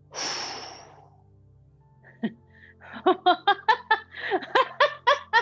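A woman laughing in a quick run of short bursts through the last couple of seconds, after a breathy exhale at the start, over faint background music.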